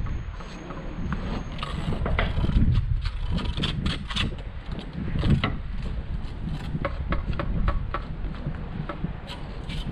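Irregular clicks, knocks and scrapes of hand work on the wall head and scaffold, over a steady low rumble.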